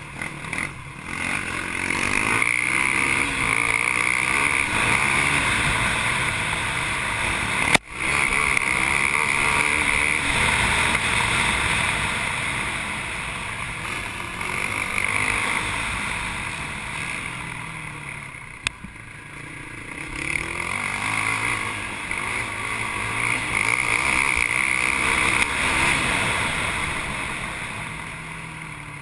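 Racing ATV engine heard close, revving up and down as the throttle opens and closes over the trail, with wind and dirt noise. A single sharp click about eight seconds in; the engine eases off about two-thirds of the way through and again near the end.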